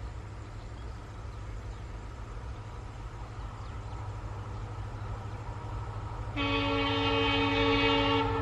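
WDG-4 diesel-electric locomotive running under power as it approaches, its low engine note growing slowly louder. About six seconds in it sounds its horn, a chord of several tones lasting about two seconds, the loudest sound here.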